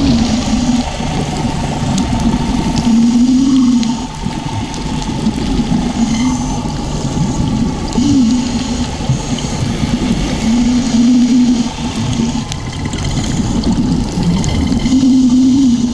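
Scuba diver breathing through a regulator underwater: a low hum with each breath, coming back every two to three seconds, over a steady wash of bubbling water.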